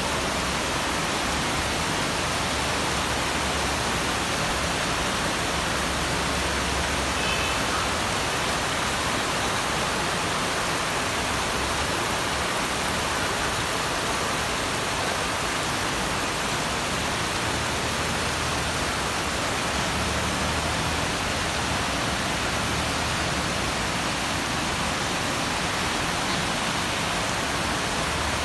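Heavy rain pouring down steadily in a dense, even hiss, with a low rumble coming and going underneath.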